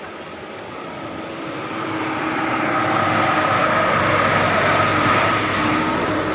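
Goods truck driving past, its engine and tyre noise growing louder to a peak a few seconds in and then easing off near the end, with a steady whine running through it.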